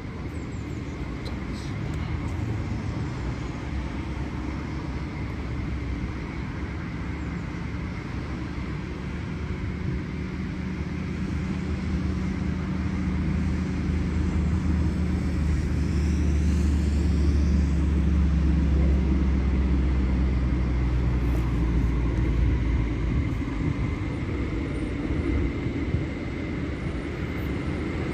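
Automatic tunnel car wash machinery running, with water spray hissing as the car passes through. A steady low mechanical hum with a faint high whine grows louder partway through, then eases off.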